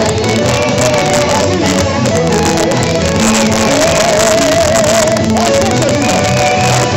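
Loud worship music: a voice singing a wavering melody over instruments and steady bass notes.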